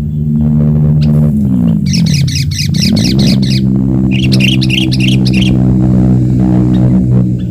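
Sooty-headed bulbul (kutilang) chattering in two bursts of rapid, high notes, about two and four seconds in. Under it runs a loud, steady low droning hum whose pitch dips and climbs back up between one and three seconds in.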